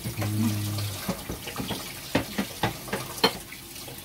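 Tomatoes being grated by hand on a grater into a bowl: repeated wet rasping strokes, about three a second. A brief low hum sounds during the first second.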